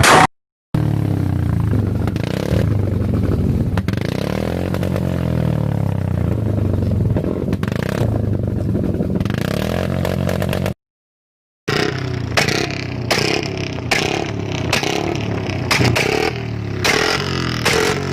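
Royal Enfield Bullet single-cylinder motorcycle engine running at a steady idle with slight rises in revs, then in the second half being revved with a run of sharp exhaust pops and crackles, the 'pataka' sound.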